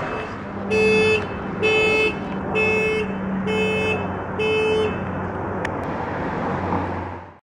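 Car horn sounding five short, evenly spaced honks, about one a second, over a steady low hum.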